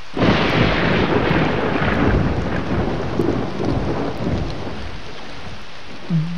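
A thunderclap that rolls on and dies away over about five seconds, over steady rain.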